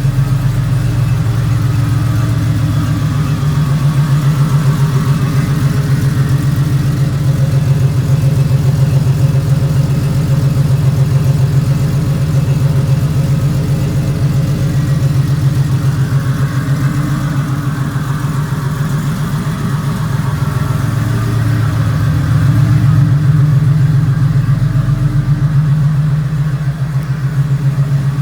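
An engine idling with a steady, even pulse, swelling a little louder near the end.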